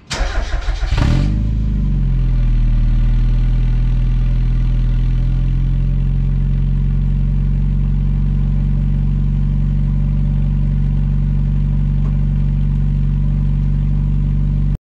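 Cold start of a 1990 Mazda Miata's 1.6L four-cylinder through a Car Make Corns V-III dual-tip exhaust: the starter cranks for about a second, the engine catches and its revs flare up and drop back, then it settles into a steady fast idle.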